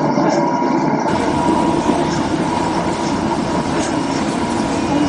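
Steady operating-room background noise from a recorded clip of an ECMO cannulation simulation: a constant hum with a thin high tone. About a second in, a low rumble joins it, with a few faint clicks later on.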